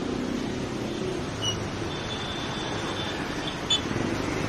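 Steady road traffic noise with a low engine hum, a thin high squeal for about a second in the middle and a short sharp sound a little after three and a half seconds in.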